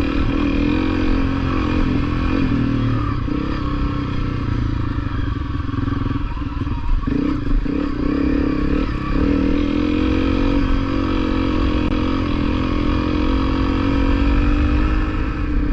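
Honda CRF250L's single-cylinder four-stroke engine running at a steady pace, with a couple of brief knocks about seven seconds in.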